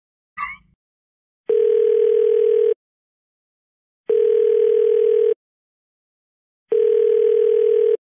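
Messenger app calling tone (ringback) from TamTam Messenger: a steady single-pitched beep about a second long, repeated three times with pauses of about a second and a half, the signal that the call is ringing at the other end. A short electronic chirp comes just before the first beep.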